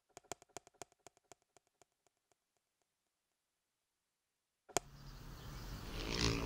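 A run of short, pitched clicks, about four a second, growing fainter and dying away about two seconds in. After a pause, one sharp click about four and a half seconds in, followed by a rising background of low hum and hiss.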